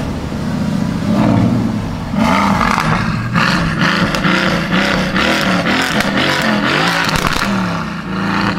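Mercedes-AMG GT S's twin-turbo V8 pulling away at low speed, its pitch rising and falling with the throttle. From about two seconds in the exhaust gets louder and rougher, with rapid crackles.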